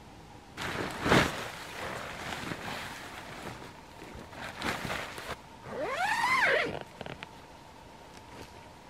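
Nylon dome tent being handled, with fabric rustling and steps on dry leaf litter, then a tent zipper pulled once about six seconds in, its pitch rising and then falling.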